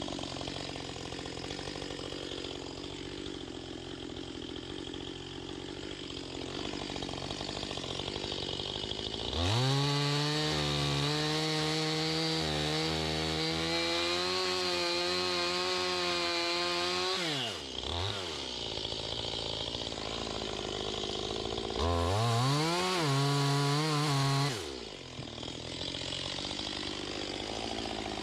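Chainsaw running at low throttle, then revved to full throttle and held there for about eight seconds while felling a tree, then dropping back. A few seconds later it gets one shorter burst of throttle and falls back to a low run.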